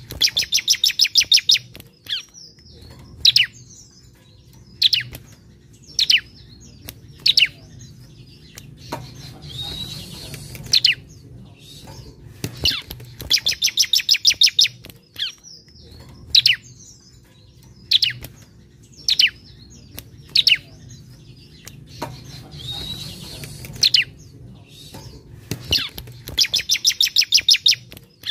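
Bar-winged prinia singing. Single sharp high chirps come about every second, broken three times by a fast rattling run of rapid high notes lasting one to two seconds, and twice by a scratchy hissing call.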